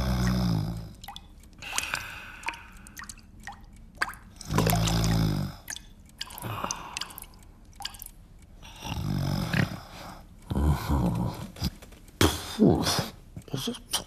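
Water dripping in single drops, between repeated low groans from a man in pain with a toothache.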